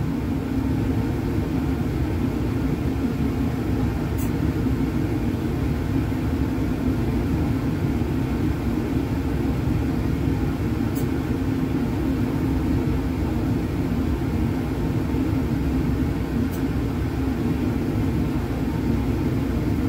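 Steady low rumble of laboratory air handling, with three brief, faint high hisses about four, eleven and sixteen seconds in. The hisses fit CO2 venting from a separatory funnel being shaken with sodium bicarbonate solution, a sign that the acid-base reaction is still giving off gas.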